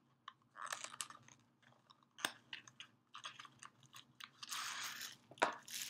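Small cardboard box being pried open by fingers: scattered clicks, scratches and rustles of paperboard, with a sharp snap about two seconds in, a longer rustle near the end and another snap just before it ends.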